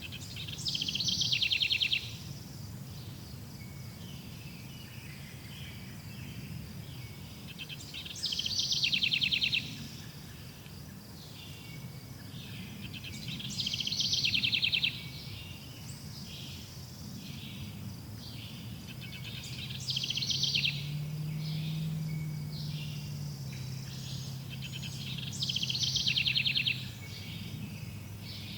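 Forest ambience: a songbird repeats a short, loud, rapidly trilled song phrase five times, about every six seconds, over steady chirring insects and a low background rumble.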